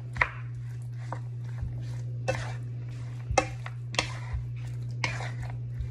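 Wooden spatula stirring raw chicken pieces in a metal wok, with about half a dozen irregular scrapes and knocks against the pan, over a steady low hum.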